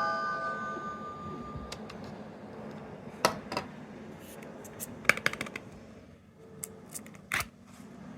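Small plastic capsule toy being handled: a few sharp clicks and taps scattered through, some in quick little clusters, after a beeping electronic tone from the toy fades out in the first second.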